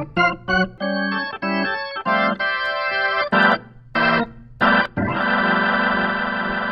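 Organ music: a run of short chords and stabs, then one long held chord from about five seconds in.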